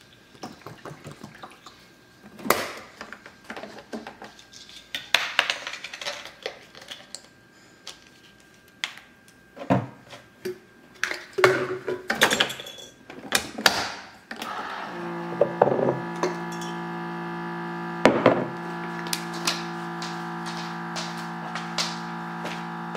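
Clicks, knocks and light clatter of a single-serve pod coffee maker being handled as water is poured into it and its lid is pressed shut. From about 15 seconds in, steady background music with held chords takes over.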